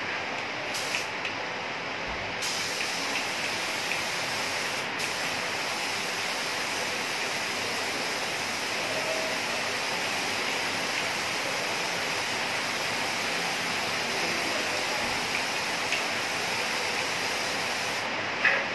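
Compressed-air paint spray gun hissing steadily as it sprays paint. The trigger is held from about two seconds in until near the end, with a brief break about five seconds in, over a steady lower hiss.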